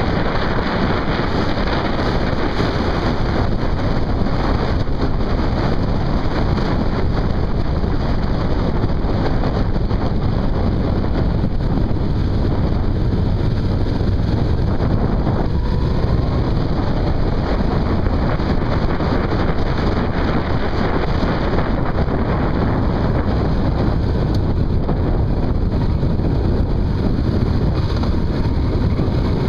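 Steady wind rushing over the microphone of a camera on a moving motorcycle, with the motorcycle running underneath at road speed.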